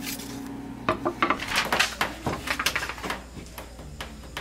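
Rapid clattering and rustling of objects being handled, starting about a second in and lasting about two seconds.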